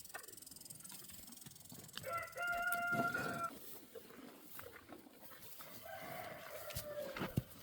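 A chicken calling twice, each a drawn-out call of about a second and more at a steady pitch, the second dropping at its end. A sharp knock comes near the end.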